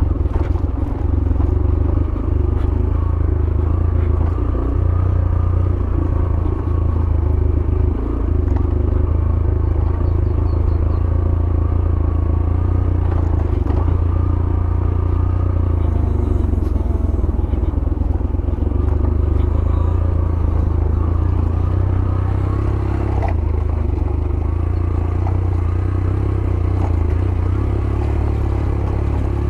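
Yamaha YBR 125G's single-cylinder four-stroke engine running at a steady low note as the motorcycle rides down a rough dirt track, with occasional knocks and rattles from the bike over the rough ground.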